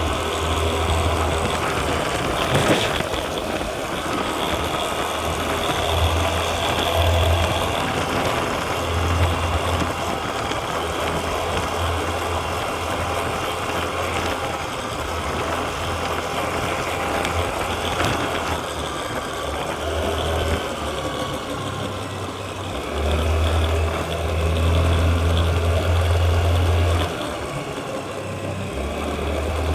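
Honda Activa 125 scooter's single-cylinder four-stroke engine running, the low engine hum swelling louder for a few seconds near the end. It carries the engine noise the owner complains of on this 20-day-old scooter.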